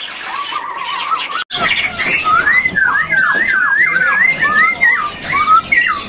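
Caged songbird singing a run of quick swooping whistled notes, with a brief drop-out in the sound about a second and a half in.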